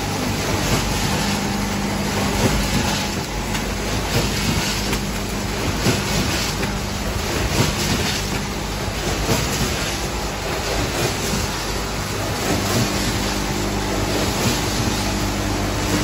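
Vertical form-fill-seal chips packaging machine running: a steady low mechanical hum with a light clatter from its bagging and sealing cycles.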